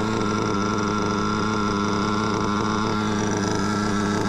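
Modded Novarossi P5-based nitro engine in an RC buggy idling steadily with the car at rest, holding one even pitch.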